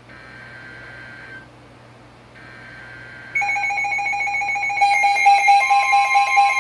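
Faint electronic ringing in repeated pulses, then about three and a half seconds in a much louder steady electronic tone chord sets in, growing busier toward the end.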